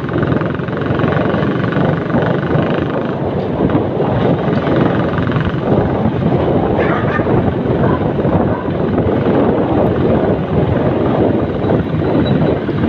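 Steady wind buffeting the phone microphone over road traffic noise.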